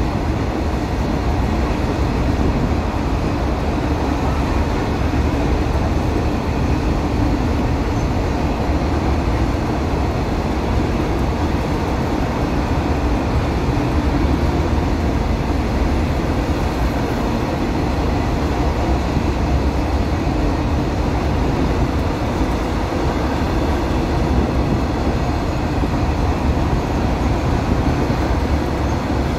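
A freight train's open box wagons rolling past at a steady speed, with a continuous rumble of steel wheels on the rails.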